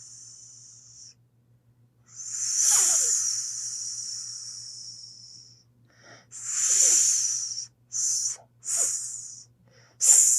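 Snake hissing in separate breaths: a long hiss, a shorter one, two quick short hisses and a fresh hiss starting near the end.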